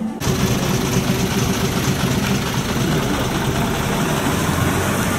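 Bus engine idling steadily, with a loud even hiss over it from a faulty recorder. Both start abruptly just after the beginning.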